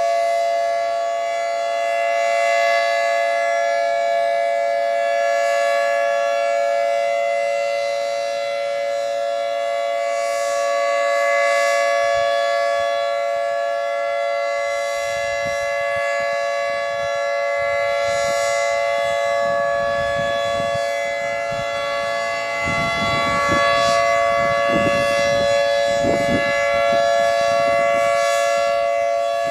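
Federal Signal 2T22 dual-tone siren sounding its steady Alert signal, the tornado-warning tone: a held two-note chord that holds its pitch and swells and fades slightly as the siren rotates.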